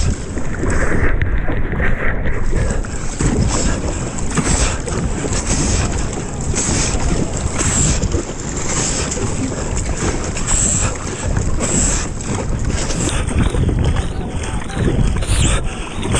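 Wind buffeting the microphone over sea water splashing and sloshing as a kayak is paddled through choppy water, with repeated splashes of the paddle blades.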